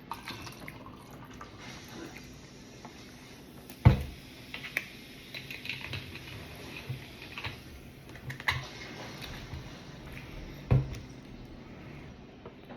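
Close-up eating sounds: chewing and mouth clicks, with light clatter against a plate and two louder knocks, about four and eleven seconds in.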